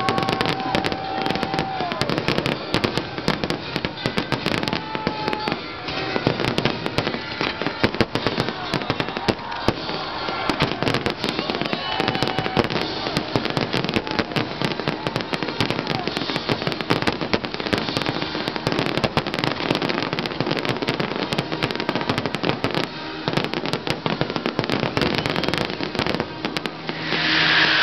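Fireworks finale: an unbroken barrage of aerial shell bursts with crackling, the bangs so close together that they run into one another, growing louder near the end.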